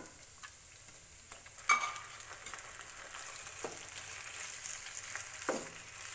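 Boiled macaroni going into a hot oiled pan of sautéed onion, carrot and capsicum and stirred with a wooden spatula, the pan sizzling throughout. One sharp knock comes a little under two seconds in, and the sizzling grows a little louder after it, with a few softer knocks later.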